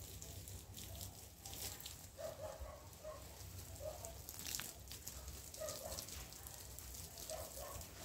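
Garden hose jet spraying water onto leafy shrubs, a soft hiss and spatter on the leaves. Several short, faint calls sound now and then in the background.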